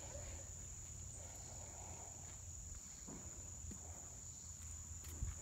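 Insects chirring in one steady high note, with a single soft thump near the end.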